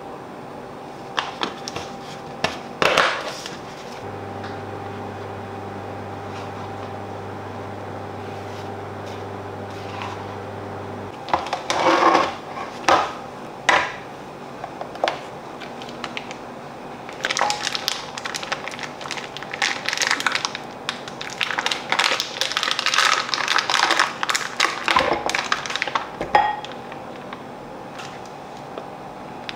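Kitchen handling sounds: a few light clicks and knocks as a spoon, containers and a bowl are set down on a digital kitchen scale, then several seconds of crackling and crinkling as butter is peeled out of its wrapper into the bowl.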